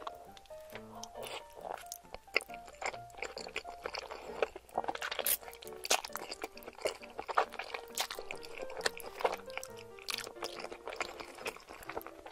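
Close-miked eating of creamy chicken fettuccine alfredo: wet chewing, lip smacks and slurps of sauce-coated noodles, in a quick run of short clicks. Soft background music with short plucked-sounding notes plays underneath.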